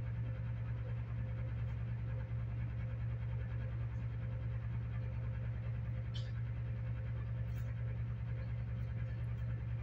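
A steady low hum with a background hiss, unchanging in level, with a couple of faint brief clicks about six and seven and a half seconds in.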